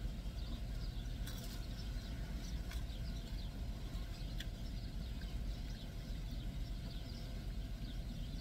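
Birds chirping, many quick high falling chirps, over the steady low rumble of an idling vehicle engine, with a few faint clicks.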